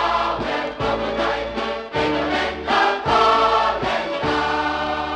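Polka band playing a Polish Christmas carol with a choir singing in Polish over a steady, even beat.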